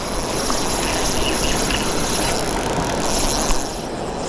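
Creek water rushing steadily through rapids in a strong current.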